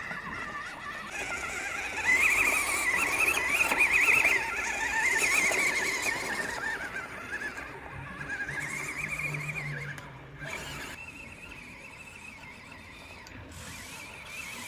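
Electric motor and gearbox of a WPL C54-1 1/16-scale RC Land Cruiser whining as it is driven, the pitch wavering up and down with the throttle. It comes in surges, loudest for a few seconds near the start and again briefly in the middle.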